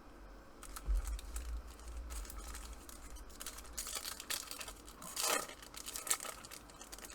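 Plastic foil wrapper of a trading-card pack crinkling and tearing as it is ripped open, in irregular crackles with a denser stretch past the middle. A low bump about a second in.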